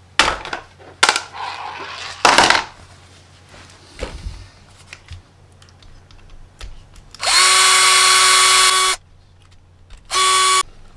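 Cordless electric screwdriver running twice, a run of about a second and a half and then a short half-second burst, backing out screws to take out the old crawler motor. A few sharp clacks of plastic and metal parts being handled come in the first couple of seconds.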